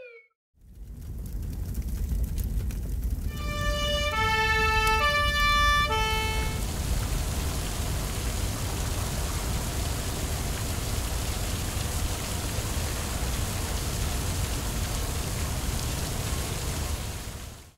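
Cartoon sound effects: a fire engine's two-tone siren alternates high and low for a few seconds, starting about three seconds in. Under and after it runs a steady rushing hiss, like rain: the water spraying from the fire truck's hose onto the burning car.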